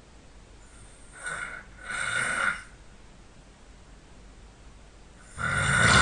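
A sleeping person snoring: two shorter, breathier snores about one and two seconds in, then a loud, deep snore starting near the end.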